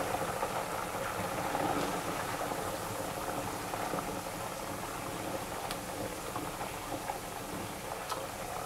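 Hot oil sizzling steadily in a pot as battered ice cream deep-fries, with a few faint crackles.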